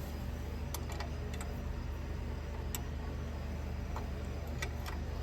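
Scattered light clicks and taps as small metal parts and tools are handled, over a steady low hum.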